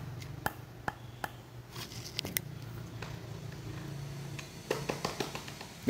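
Fingers tapping and pressing on the paper cone of a Pioneer V16 bass driver, giving a scatter of short dull taps with no bounce from the cone: its voice coil is burnt and seized. A low steady hum runs underneath.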